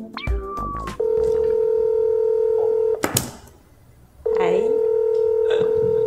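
Cordless desk phone ringing: two long, steady electronic ring tones of about two seconds each, with a pause between them. A short knock falls in the pause.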